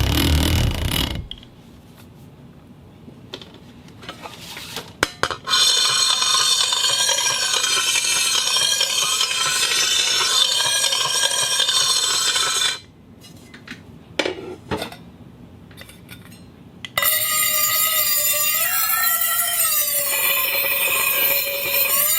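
Objects of different materials being rubbed and dragged across a concrete floor. A low scraping noise stops about a second in. After a pause with a few clicks, a high, scratchy scrape with a wavering squeal runs from about five to thirteen seconds. After another pause with clicks, a squealing scrape whose pitch rises and falls starts at about seventeen seconds.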